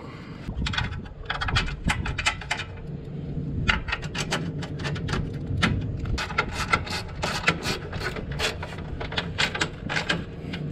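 Metal clicks and scrapes as a blower motor is seated on its steel mounting plate in a rooftop HVAC unit, then a long run of quick clicks, about four a second, as its mounting bolts are turned with a hand tool.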